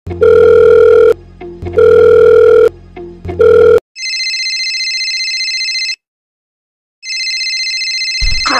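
Telephone sound effect: three loud, long beeps on one steady pitch, then an electronic phone ring trilling twice, about two seconds each with a second's pause between. A low thump comes near the end.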